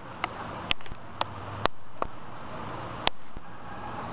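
Steady outdoor background noise with a low hum, broken by about six sharp clicks or knocks, the loudest about three seconds in.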